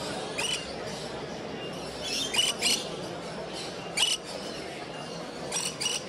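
Caged parrots giving short, high-pitched squeaky chirps, about seven in scattered clusters, over a steady background murmur.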